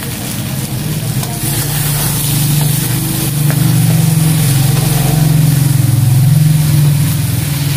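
A motor engine running with a steady low drone, growing louder from about three seconds in.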